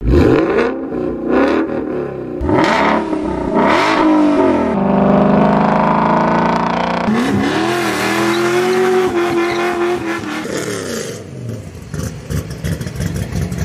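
Ford Mustang engine revving through its exhaust: several quick rev blips in the first four seconds, then a held rev, then further rises and falls in pitch. Near the end the engine sound turns rougher and noisier.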